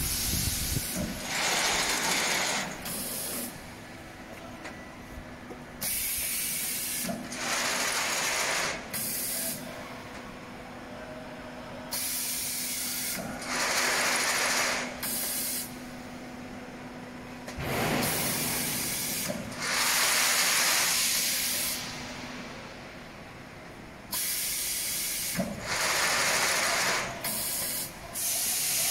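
Snack food forming machine cycling, its pneumatic system letting out loud bursts of hissing air about every six to seven seconds, each one to three seconds long, over a faint steady hum.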